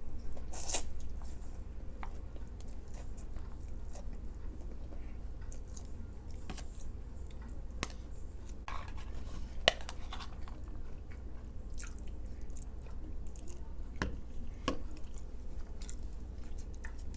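Close-up chewing of food, with wet mouth sounds and scattered short, sharp clicks, over a steady low hum.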